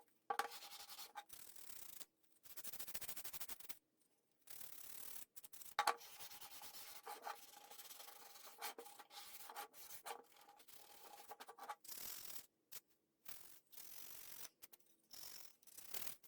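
Sanding a scroll-sawn wooden cutout to clean up its edges: faint, irregular strokes of rubbing with short breaks between them.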